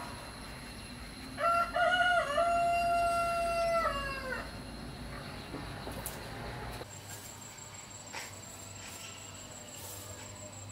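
A rooster crowing once: one long call that breaks briefly near its start, holds steady, then falls away at the end.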